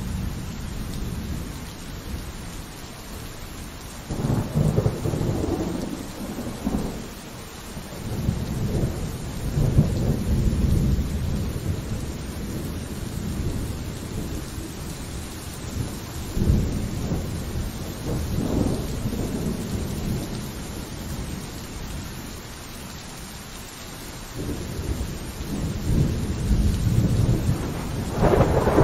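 Steady rain with rolling thunder: a series of low rumbles that swell and fade, the first about four seconds in and the strongest building near the end.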